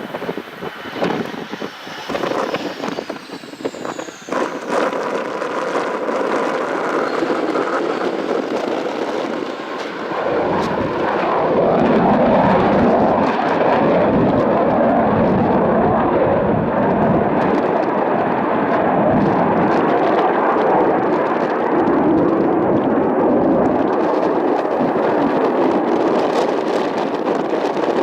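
Panavia Tornado's twin RB199 jet engines during a touch-and-go. A high jet whine falls in pitch as the aircraft passes. About ten seconds in, the engines go to a loud, steady roar as power comes up for the climb-out, and it holds.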